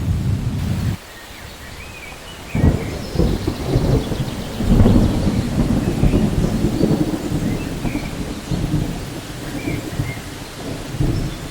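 Thunderstorm: rain falling steadily with deep thunder. The sound drops away suddenly about a second in, then a low thunder rumble breaks in about two and a half seconds in, peaks a couple of seconds later and slowly rolls away.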